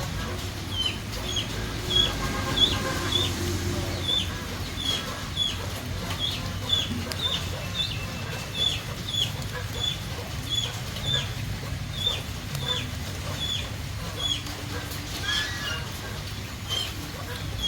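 Chicks peeping steadily: short, high, falling peeps about twice a second, with a few lower chicken calls now and then.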